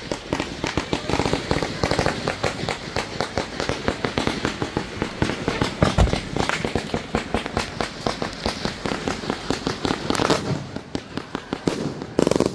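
Fireworks going off in a rapid, unbroken run of bangs and crackle, with a deep boom about six seconds in and a louder burst near the end.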